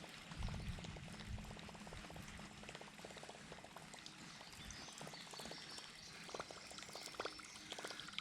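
Faint water trickling and lapping, with many small ticks scattered through it.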